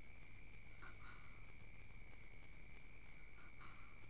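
Faint night-time insect ambience: crickets chirping in a regular repeating pattern over a steady high-pitched drone. Two brief soft noises, about a second in and near the end.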